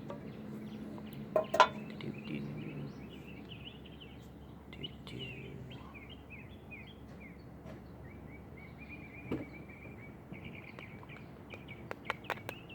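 Songbirds chirping in quick repeated series, with a couple of sharp handling clicks a second or so in and a few more near the end.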